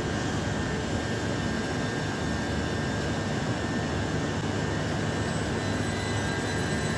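Class 357 electric multiple unit train running at steady speed: a constant rumble with faint steady high whining tones over it.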